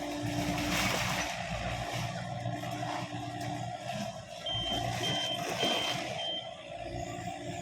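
Yanmar ViO55 mini excavator's diesel engine running under load, with a warning alarm beeping four times at an even pace near the middle.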